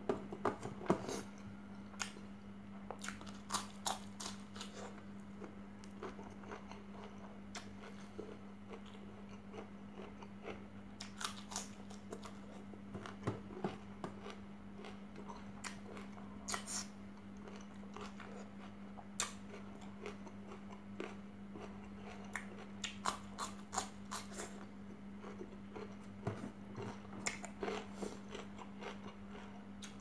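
Close-up chewing of rice and fried chicken eaten by hand, with irregular sharp clicks of fingers tapping and scraping a stainless steel tray, over a steady low hum.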